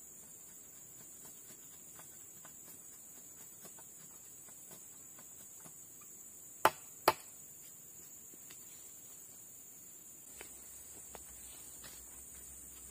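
Two sharp chops of a machete into a wooden pole, about half a second apart, amid faint scraping ticks of work on the wood. A steady high drone of forest insects runs underneath.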